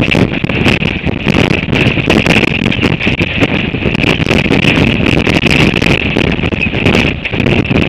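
Gale-force wind of 40 to 60 knots buffeting the microphone: a loud, continuous low rumble full of crackles, with a steady high hiss over it.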